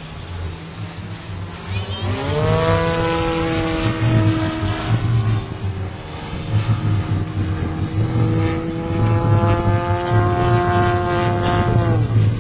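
Radio-controlled model airplane's engine in flight: its pitch rises about two seconds in as the throttle opens, holds steady for most of the time, then drops near the end as the throttle comes back. A low rumble of wind on the microphone comes and goes underneath.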